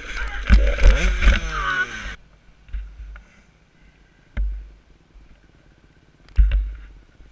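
Dirt bike engine revving up and down for about two seconds, then cutting off abruptly. What follows is quiet, broken by two dull thumps.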